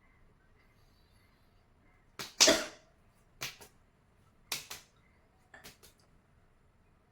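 A person sniffing snuff sharply up the nose in four quick double sniffs about a second apart, the first pair the loudest and longest.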